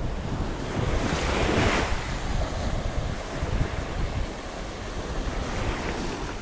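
Small sea waves washing, with wind buffeting the microphone; one wave washes louder about a second and a half in.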